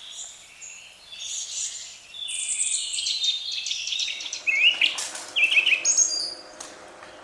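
Small songbirds chirping and singing in quick runs of high notes, with short rising chirps in the second half. A few sharp clicks sound among them.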